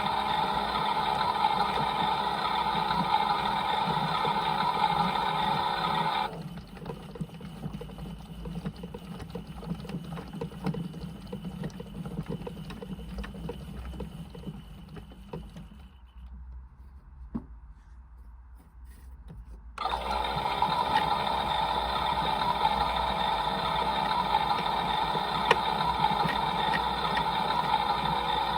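Toy washing machine's small electric motor running steadily, turning the drum, then stopping about six seconds in; a quieter stretch of light clicks follows, almost nothing is heard for a few seconds, and the motor starts again about twenty seconds in, like a wash cycle's turn-and-pause rhythm.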